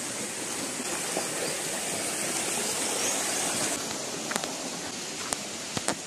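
Steady rush of a small rocky stream's flowing water, with a few sharp clicks near the end.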